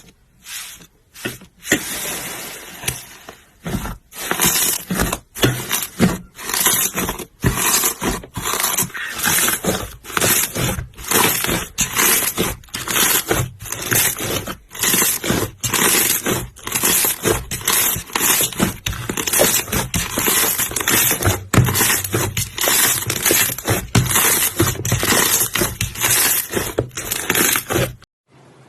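Slime being squeezed and pressed by hand: a long run of short noisy squishes, roughly one or two a second, that stops abruptly near the end.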